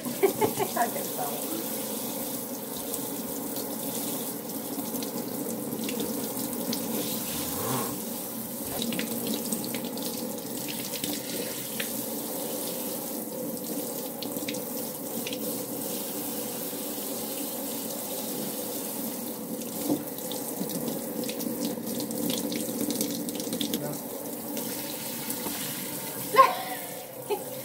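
Water running steadily from a pull-down kitchen faucet sprayer, splashing over small hands into the sink.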